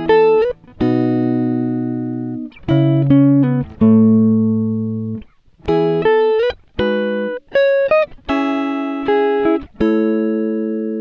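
Background music: plucked guitar chords and single notes, each struck and left to ring out and fade.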